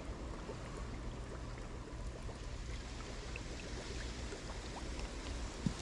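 Steady rushing noise with a low rumble, wind buffeting the microphone, with a few faint clicks near the end.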